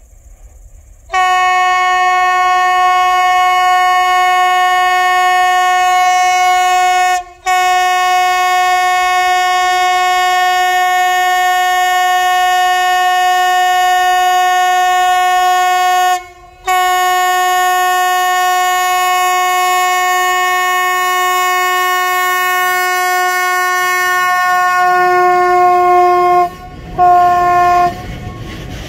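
Locomotive horn blown on the approach of a freight train: one steady note sounded in three long blasts of roughly six, nine and ten seconds, then a short one, the pitch dipping slightly at the end as the locomotive draws level. The rumble of the locomotive and its wagons grows underneath in the last few seconds.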